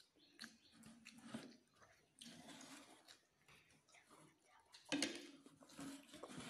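Faint mouth sounds of small children eating noodles: chewing and slurping, with a few light clicks, the loudest about five seconds in.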